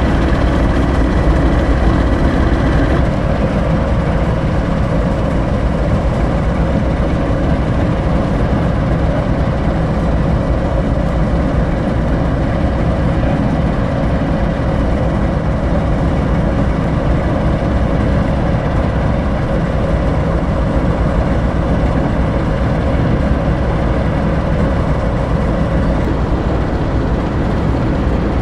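British Rail Class 08 shunter's English Electric six-cylinder diesel engine idling steadily. A thin high whine sounds over it and stops about three seconds in.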